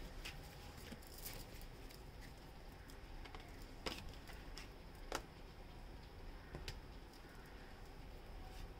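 Faint, sparse clicks and light taps of tarot cards being handled while cards are drawn from the deck, a few isolated ticks spaced a second or more apart.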